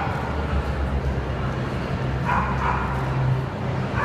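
A dog yapping: two quick high yaps just past two seconds in and another near the end, over the steady background noise of a crowded hall.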